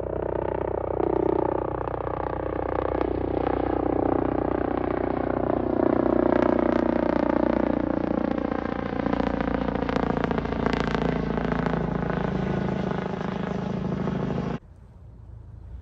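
Helicopter flying overhead: a steady, loud rotor and engine sound with many pitch lines, cutting off abruptly near the end.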